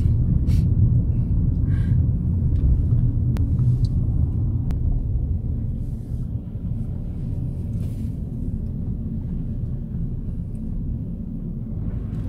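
Low rumble of a car on the move heard from inside its cabin: engine and tyre noise, somewhat quieter from about six seconds in.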